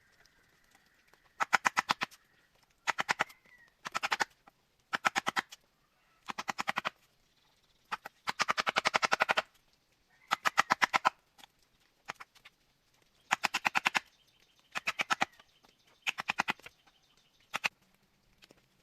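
Repeated bursts of rapid rattling clicks, roughly one burst every second or so, each lasting half a second to a second and a half.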